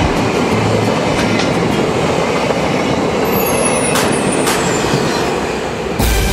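A train of SBB passenger coaches running past at speed: a steady rush and rumble of wheels on rail, with sharp clicks as the wheels cross rail joints. Music cuts in abruptly near the end.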